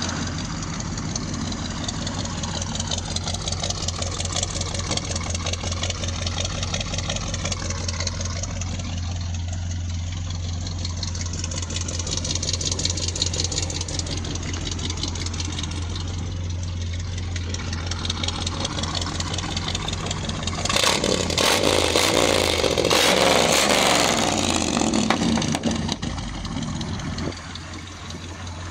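Ford 302 small-block V8 in a 1972 F100 pickup, running steadily. About two-thirds of the way through it rises to a louder surge for roughly three seconds, then settles back.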